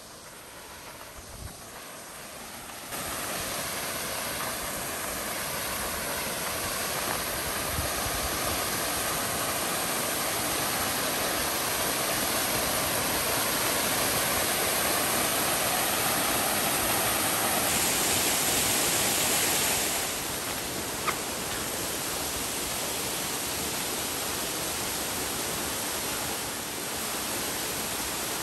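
Steady rushing water noise, like a mountain stream. It starts abruptly about three seconds in and holds even.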